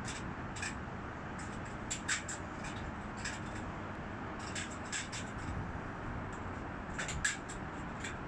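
Steady low outdoor background rumble with many short, sharp high-pitched ticks at irregular intervals. The loudest ticks come a little past two seconds in and about seven seconds in.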